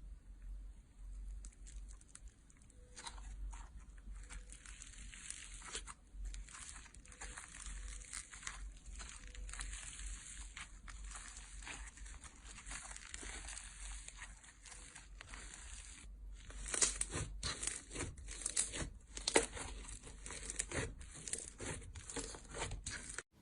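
A bar of soap being cut with a knife, giving a dense dry crackling and crunching as the blade shears through it and the soap crumbles. Heavier, louder crunches come in the last third.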